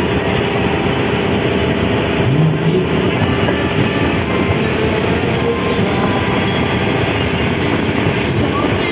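Outrigger boat's engine running steadily under way, a loud, even drone.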